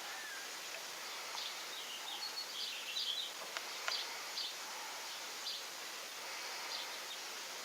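Outdoor background hiss with scattered short bird chirps, a cluster of them about two to three seconds in, and a few light clicks.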